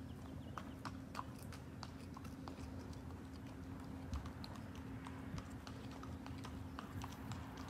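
Faint, irregular light clicks from saddled horses, a few a second, over a steady low hum.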